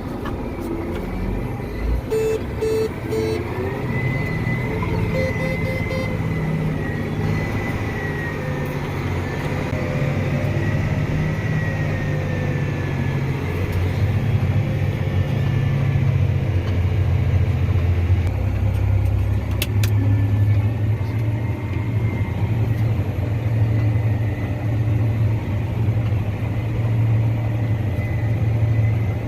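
Farm tractor's diesel engine running steadily under load while pulling a grain cart, with a faint whine that slowly falls in pitch early on. The engine note shifts partway through and settles lower and steadier, with a few light clicks.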